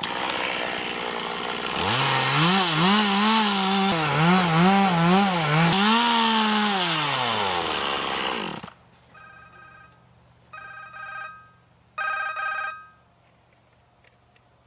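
Two-stroke chainsaw running and revving up and down as it cuts the back cut, then winding down and stopping about eight and a half seconds in. A phone ringtone follows, ringing in three short bursts.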